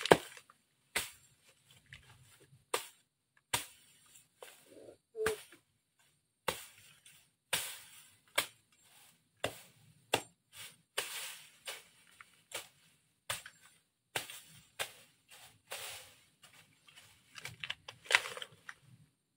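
Machete slashing through weeds and grass: a long irregular run of sharp cutting strikes, about one or two a second, some trailing into a longer swish and rustle of falling stems.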